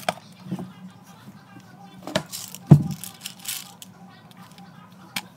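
A plastic pill bottle handled on a stone countertop: scattered clicks and rattles, a sharp knock a little under three seconds in, then the cap being twisted open.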